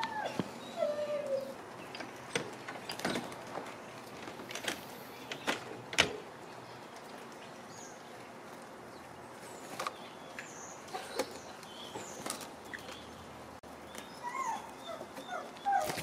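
Short animal calls, a few just after the start and a cluster near the end, with scattered sharp clicks and knocks in between.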